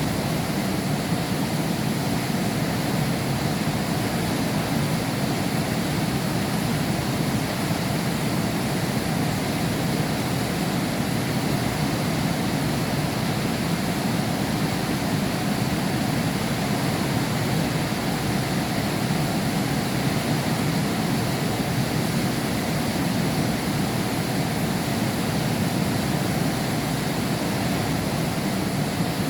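Heavy rain falling steadily, heard from behind a window pane: an even, unbroken rush with no thunder.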